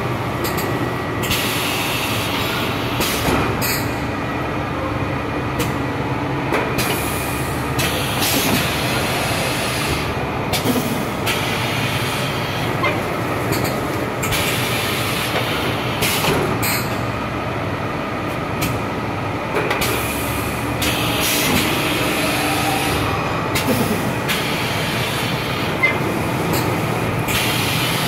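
Thermoforming vacuum packaging machine running: a steady mechanical rumble with bursts of hiss that come and go every few seconds.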